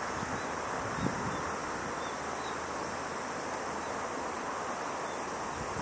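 Steady outdoor background noise, a continuous hiss, with a few faint, high chirps about one to three seconds in.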